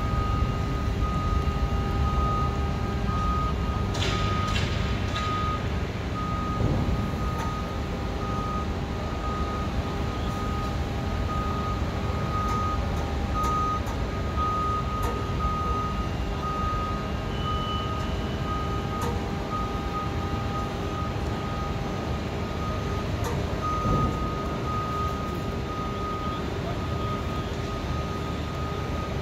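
Electric towbarless aircraft tug moving a Boeing 787-9, its warning beeper sounding an even, repeated beep over a steady low rumble.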